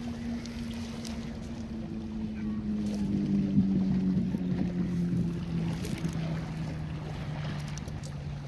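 An engine drones as it passes, loudest about midway and falling steadily in pitch as it goes by.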